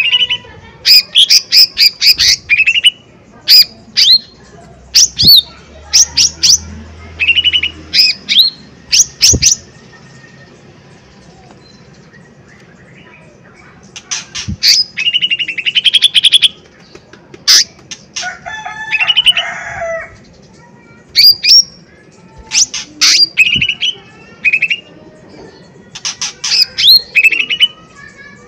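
Cucak ijo mini (a small leafbird) singing loud, sharp bursts of quick high chips and rattling trills, in repeated clusters with a pause of a few seconds in the middle.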